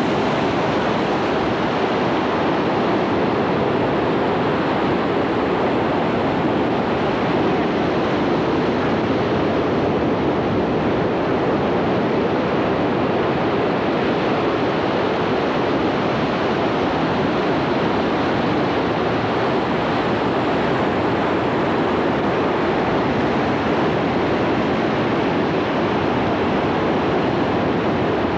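Ocean surf breaking on a rocky shore, a steady, unbroken wash of noise.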